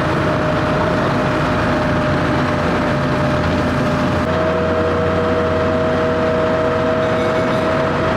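Loud, steady engine and motion rumble of a vehicle carrying passengers, with a steady whine that a second, lower whine joins about four seconds in.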